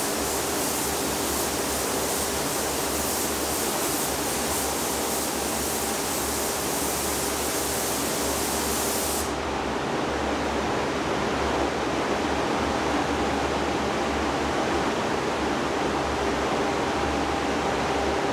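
Compressed-air paint spray gun hissing as clear coat is sprayed, cutting off sharply about nine seconds in. The paint booth's ventilation runs under it as a steady airy noise with a faint hum.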